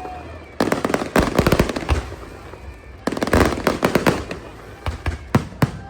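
Aerial fireworks bursting in rapid crackling volleys, three dense clusters of sharp cracks, then a few single loud bangs near the end.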